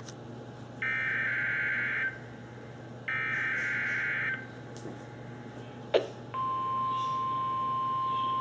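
NOAA Weather Radio Required Weekly Test heard through a Midland WR-30 weather radio. Two harsh buzzing SAME digital header bursts, each just over a second long and about two seconds apart, are followed near six seconds by a sharp click. Then the steady single-pitch 1050 Hz warning alarm tone begins; it is the attention signal that sets off alert receivers.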